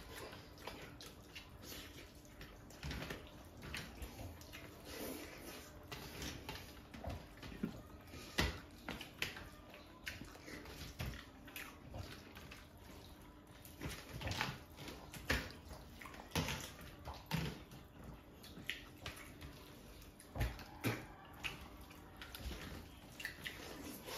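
Eating by hand: fingers squishing and mixing curry-soaked rice on metal platters, with chewing and lip smacks, heard as irregular short wet clicks and smacks.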